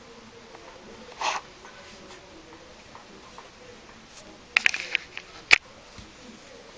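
Small handling noises of nail-polish work with a makeup sponge over a plastic lid: a short brushing rustle about a second in, a quick run of light clicks near five seconds, then one sharp click, the loudest sound.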